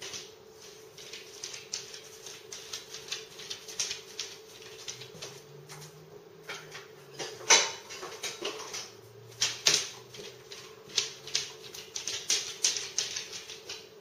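A dog's claws clicking and tapping on a hard kitchen floor and scrabbling at the counter as it jumps up, in a quick, irregular run of ticks with one sharp knock about halfway through.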